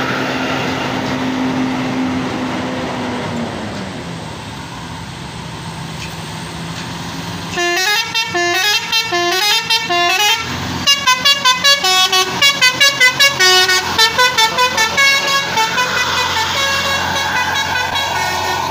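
Tour bus's multi-tone telolet horn playing a quick, repeating melody of short notes for about six seconds, starting about eight seconds in. Before it the bus's diesel engine runs steadily, and its pitch drops at about three and a half seconds.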